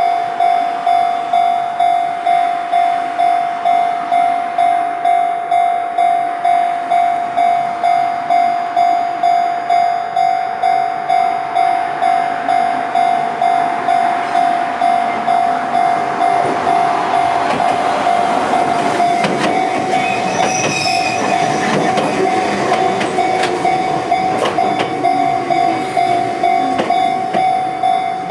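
Japanese level-crossing warning bell ringing steadily at about two strikes a second. From about 12 seconds in, a train approaches and passes through the crossing, with a rising rumble and the clack of wheels over rail joints.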